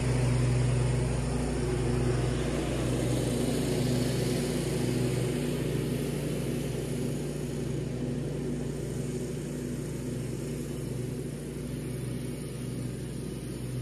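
Riding lawn mower engine running steadily, growing gradually fainter as the mower drives away across the lawn.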